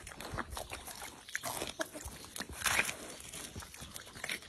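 Young pig eating watermelon: irregular wet chewing and crunching of the fruit and rind, with a louder stretch a little before three seconds in.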